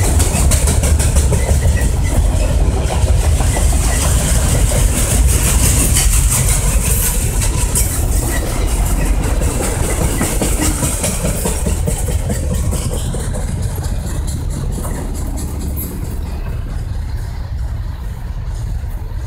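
Autorack freight cars rolling past on the rails: a steady rumble with wheel clatter and a hiss. The noise thins and fades over the last few seconds as the end of the train moves away.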